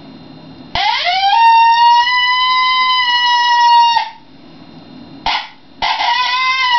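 Cow horn howler, a reed predator call, blown in long howls imitating a coyote: a note that rises quickly about a second in and holds steady before dropping off, a short note, then another rising, held howl near the end.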